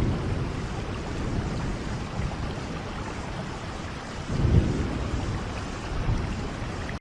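Steady rain falling, with deep rumbles of distant thunder swelling twice: around the start and about four and a half seconds in. The sound cuts off abruptly at the very end.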